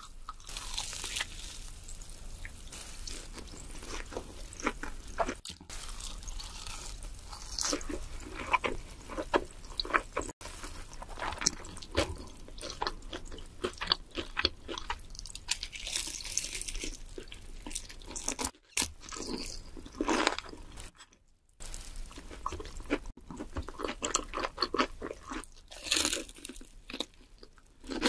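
Close-miked eating of crunchy fried food: crisp crunching bites followed by wet chewing and mouth sounds, a series of crackles and smacks. The sound drops out briefly twice about two-thirds of the way through.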